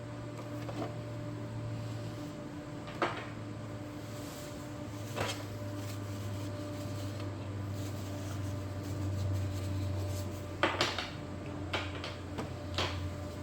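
A handful of short plastic clicks and knocks from handling inkjet printer parts and an ink cartridge, over a steady low hum.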